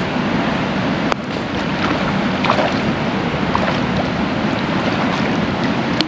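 Steady rushing of creek current, with two sharp clicks: one about a second in and one near the end.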